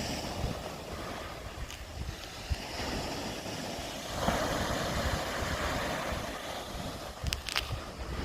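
Wind buffeting the microphone over surf on a shingle beach, with a louder rush of water swelling about four seconds in and a few sharp clicks near the end.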